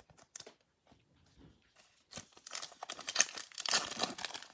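A foil baseball-card pack being torn open and crinkled by hand, the crackling starting about two seconds in after a few faint taps.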